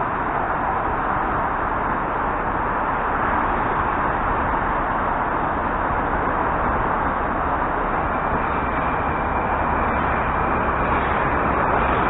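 Steady running noise of an EP2D electric multiple unit at a station platform, slowly growing a little louder, with a faint thin high tone joining about eight seconds in.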